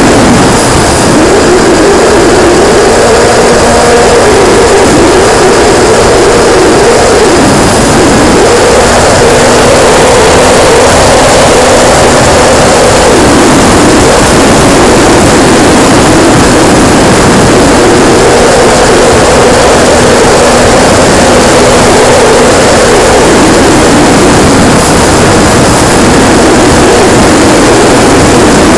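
Motor and propeller of a radio-controlled P-51D Mustang model, heard through its onboard camera under heavy wind rush. The motor's pitch rises and falls several times as the plane manoeuvres and the throttle changes.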